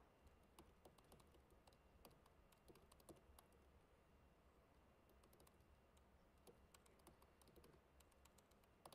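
Faint typing on a laptop keyboard: irregular key clicks as a command is typed, over a low steady hum.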